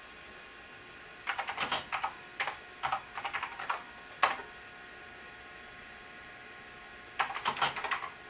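Typing on the Commodore 900's keyboard: a quick run of keystrokes about a second in, ending in one louder key press a little after four seconds. After a pause, another short run of keystrokes comes near the end.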